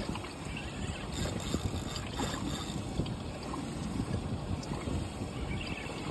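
Wind buffeting the microphone in a steady low rumble, with faint scattered ticks over it.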